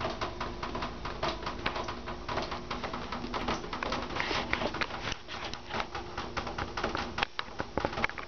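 A bat clinging to a bathroom ceiling, chittering in dense, rapid, irregular clicks over a steady low hum.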